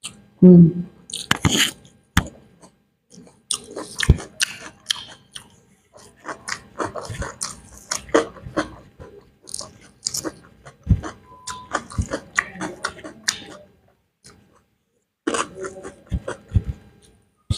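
Close-miked eating of beef biryani: wet mouth smacks, chewing and clicks in irregular runs with a few short pauses, and a brief 'hmm' near the start.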